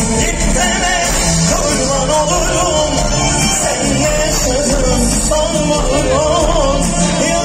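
Live band music from a concert stage, with drums, keyboards and strings, heard from the seats of an open-air amphitheatre. A wavering melodic line carries over a steady bass.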